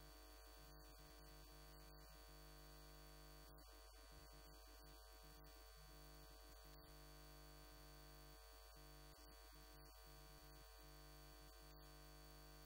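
Near silence: a faint steady electrical hum and hiss.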